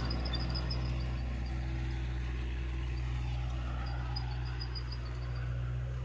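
Kubota MU4501 tractor's diesel engine running steadily under load while driving a rotavator through the soil, a low, even drone. A run of short high chirps sounds near the start and again after about four seconds.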